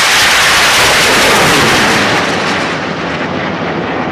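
Many high-power model rocket motors, several of them throwing sparks, firing together in a mass launch: one loud, continuous rushing that eases slightly after about two seconds as the rockets climb away.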